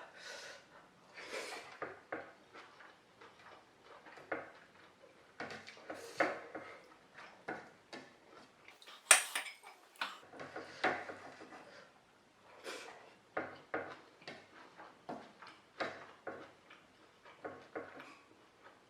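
Eating from a plate: irregular clinks and scrapes of a utensil against a dish, the loudest a sharp clink about nine seconds in.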